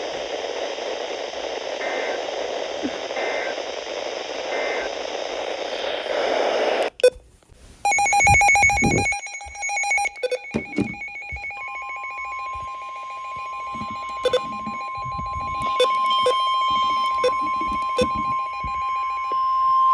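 Weather radio receiver hissing with static, three faint short bursts in the hiss. It cuts out, and about a second later a pulsing alert tone starts. A few seconds after that, the steady NOAA Weather Radio warning alarm tone (about 1050 Hz) joins, running until the next warning message begins, with a few sharp clicks over it.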